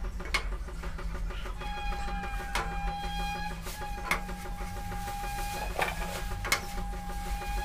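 Short clicks of a spatula against a pan as bread slices are toasted, about six in all. Between them a steady pitched tone sounds three times, each for about two seconds.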